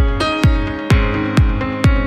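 Electronic dance music with a steady kick drum, about two beats a second, under held synth chords.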